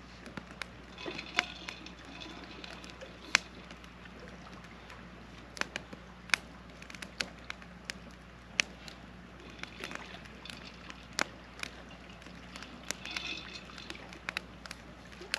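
Wood campfire crackling, with sharp pops at irregular intervals, a couple each second.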